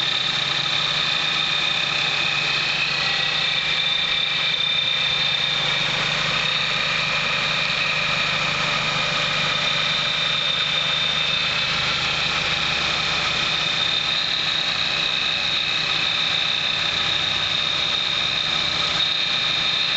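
1998 Ford Escort ZX2's 2.0-litre four-cylinder engine idling, with a steady high-pitched whine over a low hum. The noise is unexplained: a new serpentine belt has not cured it, and the cooling fan's motor, a pulley or belt tension have been suggested as the cause.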